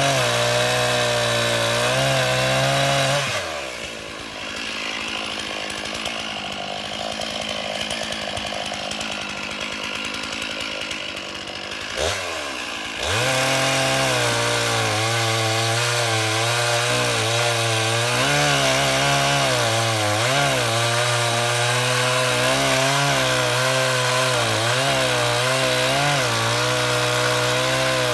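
A small engine running fast. About three seconds in it drops to a low idle, and about twelve seconds in it is revved back up and runs fast again with a wavering pitch.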